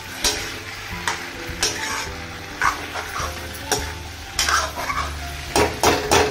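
A spatula scraping and stirring diced potatoes and tomatoes in a non-stick kadhai over a soft frying sizzle. The scrapes come repeatedly at an uneven pace and are loudest near the end.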